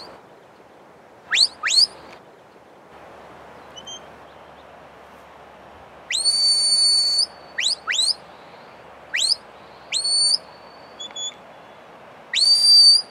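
A handler's whistle commands to a herding border collie: quick rising whistles, mostly in pairs, and two long held notes, one about six seconds in and one near the end.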